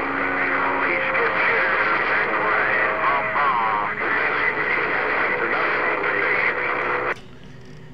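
CB radio receiving a crowded channel: several stations keyed up over one another, a jumble of distorted, garbled voices in static with a few steady whistling tones. The signal cuts off about seven seconds in, leaving a faint hiss.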